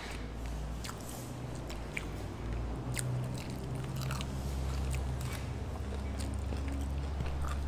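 Close-up chewing and biting of chicken, with scattered small crunches and mouth clicks, over a steady low hum.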